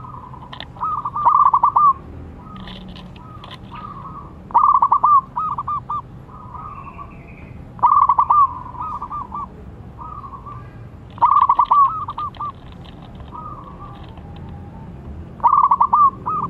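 Zebra dove (perkutut) singing: a phrase of rapid cooing notes, loudest at the start and trailing off softer, repeated five times about every three and a half seconds. Fainter chirps from other birds in between.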